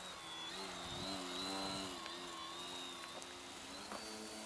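Model aerobatic plane's motor and propeller buzzing in flight, the pitch dipping and rising as it passes low and then climbs away, loudest a second or two in.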